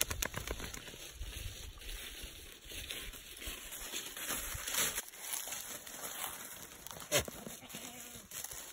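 Dry fallen leaves crackling and rustling under goats moving through them, with one sharp crackle about seven seconds in. A rutting buck goat makes short throaty sounds.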